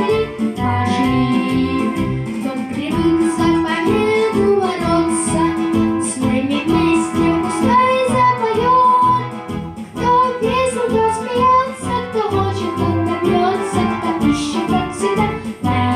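A child singing a cheerful song over an instrumental backing track with a steady beat.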